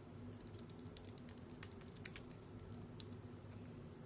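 Faint, irregular clicking of someone typing, the taps coming in quick runs.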